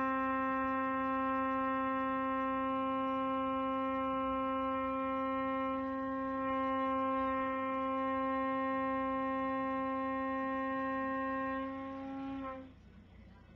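One long, steady, pitched note with a full set of overtones, held without a break, dipping slightly in loudness about halfway and cutting off sharply near the end.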